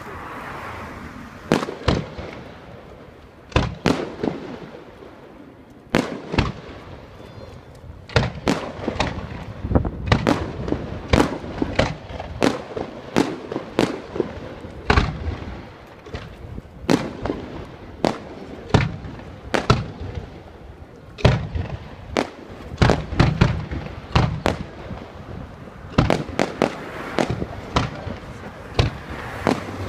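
Aerial shell fireworks bursting in a display: a few spaced booms at first, then about eight seconds in a dense barrage of bangs several a second, each echoing briefly.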